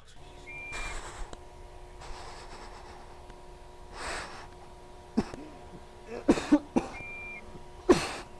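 A steady, low electrical hum of several tones, with two short high beeps: one about half a second in, one about seven seconds in. Several short breathy bursts with quick downward sweeps, like sharp breaths or gasps, come about four, five, six and eight seconds in.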